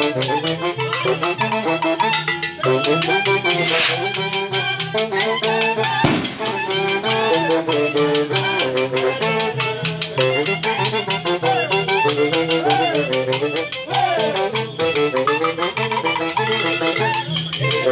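A live street band playing: saxophones, clarinet and trumpet carry the melody over timbales and a metal güiro scraped in a fast, even rhythm, with a repeating bass line underneath.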